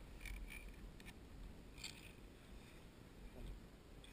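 Near silence: a faint low rumble with a few soft clicks.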